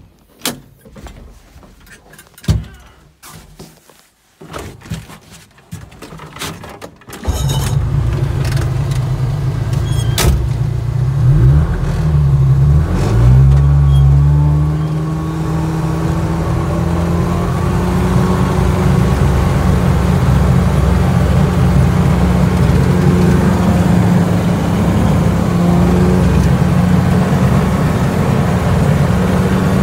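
Homemade trail groomer's engine starting suddenly about seven seconds in after a few clicks and knocks, then running steadily as the groomer drives along, heard from its cab. The engine pitch dips and rises briefly a few seconds after it starts.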